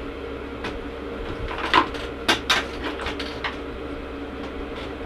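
Cardboard shipping box being opened and handled: a few sharp knocks and scrapes, loudest in the middle, over a steady background hum.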